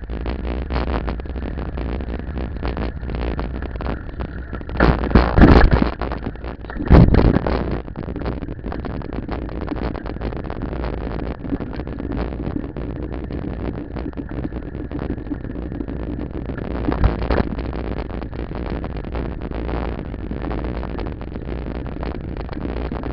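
Wind buffeting the microphone of a bicycle-mounted camera during a ride, a steady low rumble with constant small jolts and rattles from the bike. Two loud bursts stand out around five and seven seconds in, and a smaller one shortly after seventeen seconds.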